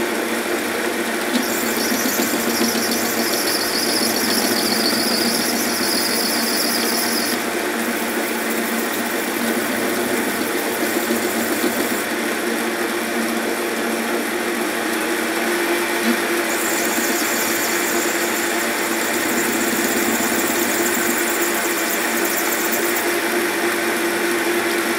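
Small lathe running steadily while an insert tool takes a cut on the outside of an acetal (POM) plastic nut. A high-pitched whine rides over the running sound twice, from about two to seven seconds in and again from about sixteen to twenty-three seconds.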